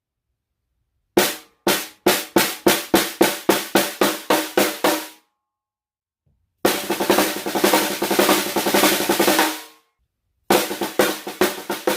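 14x7 African mahogany stave snare drum being played: two single hits, then a run of strokes at about four a second, a pause, a roll of about three seconds, and after another pause a fresh run of strokes near the end.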